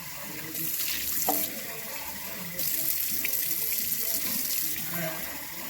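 Tap water running into a sink, the splashing getting louder and softer in turns, with a light clink about a second in.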